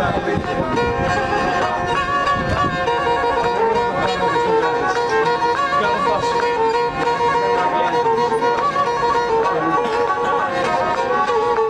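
A fiddle-like bowed string instrument plays a lively, ornamented folk melody over a held drone note, with voices chatting underneath.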